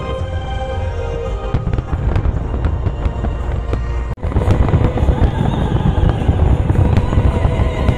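Fireworks bursting and crackling over orchestral music. About four seconds in the sound drops out for a moment, then returns louder and denser, with a fuller wash of crackling.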